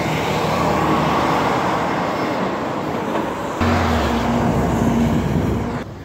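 Diesel semi tractor passing close by, its engine and tyres making a steady rushing noise. About three and a half seconds in, the sound switches abruptly to a louder, deeper steady engine drone, which cuts off just before the end.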